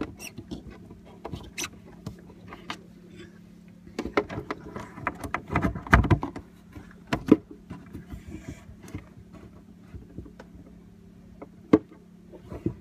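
Irregular clicks, taps and knocks of hands and parts working under a sink while the new faucet's fittings are screwed on from below, with a louder knock about six seconds in and another a second or so later.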